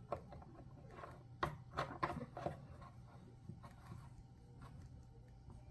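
Faint handling noises: a few light clicks and taps of a plastic cordless chainsaw and its oil bottle being handled, bunched together about one and a half to two and a half seconds in, over a low steady hum.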